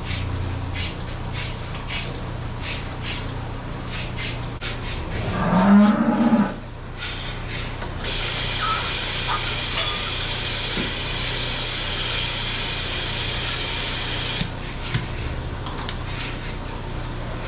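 A dairy cow moos once, a long low moo about five seconds in, over a steady machine hum in the milking barn. From about eight seconds to fourteen seconds a steady hiss runs alongside the hum.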